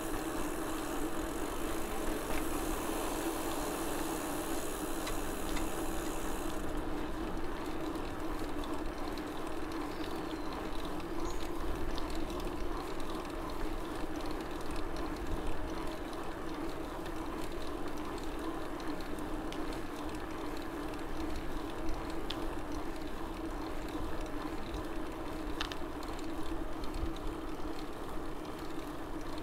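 Mountain bike rolling along a paved street: a steady tyre hum with road noise, a high hiss dropping away about seven seconds in and a few light clicks.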